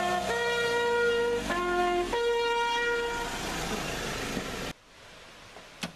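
Multi-tone horn on a Land Rover Defender fire truck sounding a run of held notes at several pitches, one after another, over the running engine. Horn and engine cut off suddenly nearly five seconds in.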